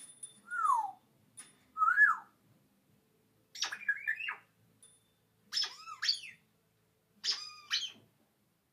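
African grey parrot whistling and calling: a clear falling whistle, then a rise-and-fall whistle, then three shorter, harsher double-note calls, one every couple of seconds.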